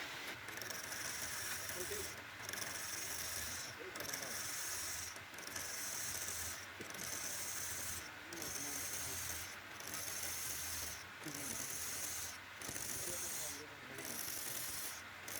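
Repeated scratchy rubbing strokes on wood, about one every second and a half, each stroke a steady hiss with a short break between, over a faint low hum.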